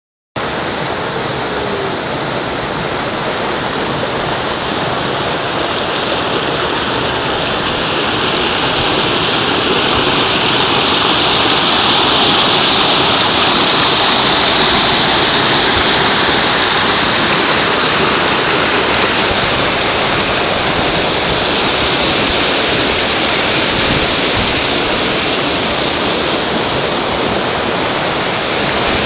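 River rapids spilling over a rock ledge: a steady, loud rush of whitewater that grows a little louder about eight seconds in.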